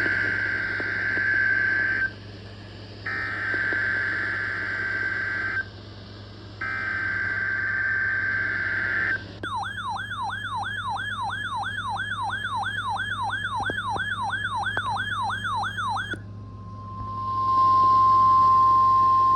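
Emergency Alert System SAME header: three data bursts of about two and a half seconds each, a second apart. Then a warbling, siren-like alert tone sweeping up and down about three times a second for some seven seconds. After a short gap comes a steady single tone of about three seconds, the loudest part: the NOAA Weather Radio 1050 Hz alarm tone that opens a severe thunderstorm watch alert.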